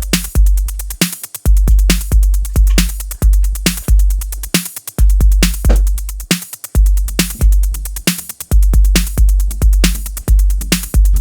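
Electronic music with a drum-machine beat: sharp, evenly paced hits over heavy, booming bass notes.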